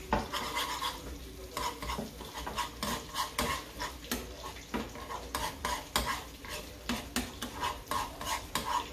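A metal spoon stirring thick ketchup-based buffalo sauce in a small frying pan, scraping and knocking against the pan in short, irregular strokes about twice a second.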